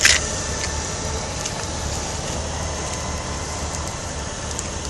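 Honda Gold Wing touring motorcycles running at idle, with another motorcycle rolling slowly up, under a steady low rumble. A short hiss right at the start.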